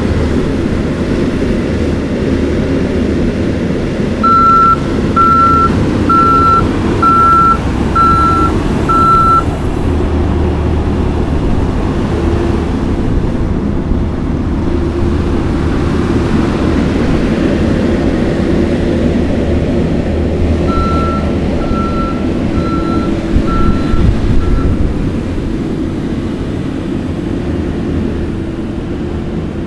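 Skid steer's diesel engine running steadily while its backup alarm beeps about once a second as it reverses: six loud beeps a few seconds in, then five fainter beeps past the middle.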